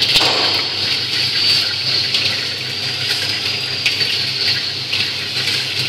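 Commercial popcorn seasoning machine running: popcorn tumbling in the rotating stainless-steel drum gives a steady hiss, over a low motor hum and a faint high whine.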